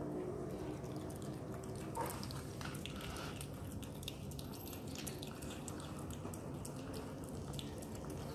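Otter pup chewing food, a steady run of quick, wet clicking smacks.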